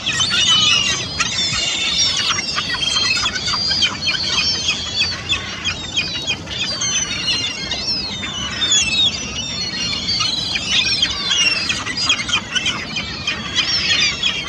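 A flock of young herring gulls calling: many high squealing cries overlap without a break. Splashes come in among them as the gulls dip their heads under for minnows and flap on the water.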